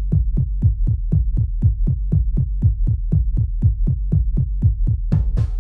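Electronic dub track opening with a low, even beat of about four pulses a second over a deep held bass. A full drum kit with snare and cymbals comes in near the end.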